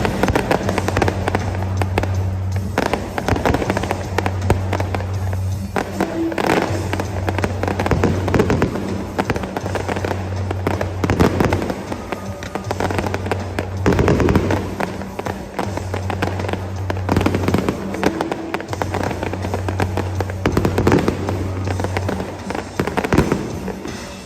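Aerial fireworks shells bursting in quick succession, with a dense run of bangs and crackle, over music carrying a steady low bass note that drops out and returns several times.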